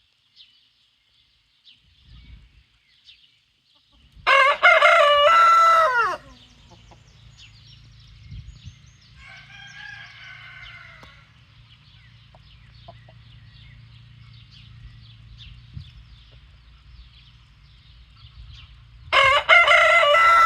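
Rooster crowing: a loud crow of about two seconds some four seconds in, a fainter crow a few seconds later, and another loud crow starting near the end. A low steady hum and faint high chirps lie underneath.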